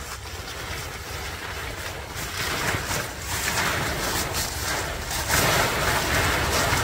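Nylon fabric of a Nortent Arctic Lavvo tent rustling and crinkling as it is unfolded and pulled across gravel, getting louder about five seconds in.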